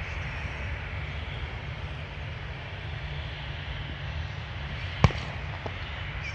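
Steady rumble and hiss of a jet airliner heard at an airfield, with a sharp click about five seconds in and a fainter click just after.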